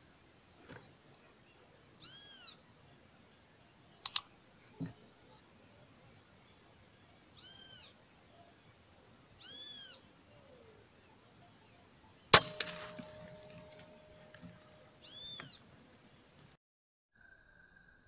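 A steady high-pitched whine in the background, with four short rising-and-falling calls spread through it. Two sharp clicks: a small one about four seconds in, and a louder one about two-thirds through that is followed by a brief ring.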